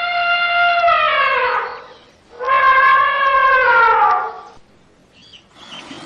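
Elephant trumpeting: two long, loud trumpet calls with a brief gap between, each held on one pitch and then sliding down at its end.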